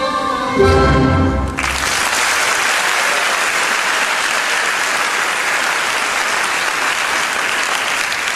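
Orchestral ballet music ends on a loud final chord with heavy low notes about a second and a half in, and the audience breaks into steady applause.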